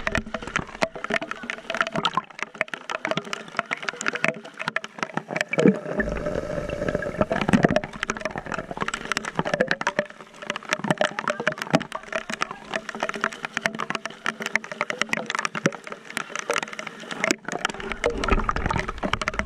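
Hard rain pelting the sea surface: a dense crackle of countless drops striking water. Water sloshes louder at the camera about six seconds in and again near the end.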